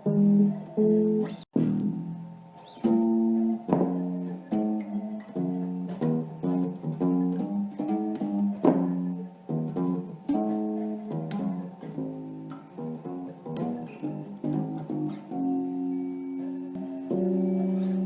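A guitar playing a quick riff of single plucked notes, several a second, settling into longer held notes near the end.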